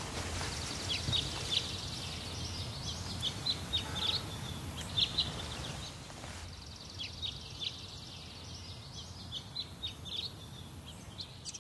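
Small birds chirping in short, quick notes over a steady low background noise, which becomes quieter about six and a half seconds in.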